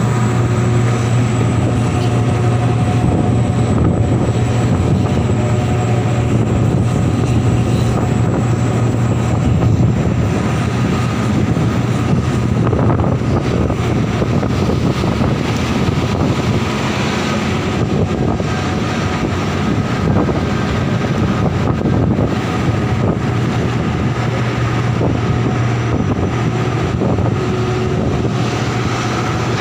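Large diesel engine of heavy loading machinery running steadily: a deep, even drone with a faint higher whine above it.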